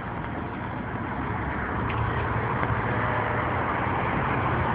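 Motor vehicle running: a steady low engine rumble with road and wind hiss that grows louder about two seconds in.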